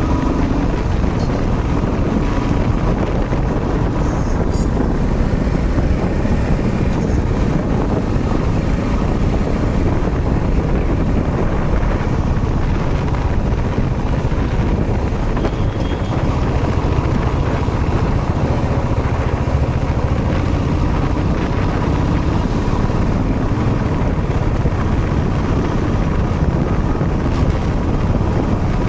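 Steady wind rush on the microphone of a moving motorcycle, with the bike's engine and road noise underneath.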